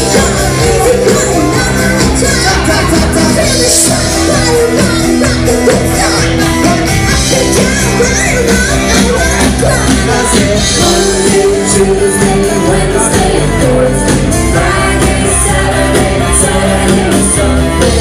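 Loud live pop-rock music from a band with a singer, and the crowd shouting and singing along.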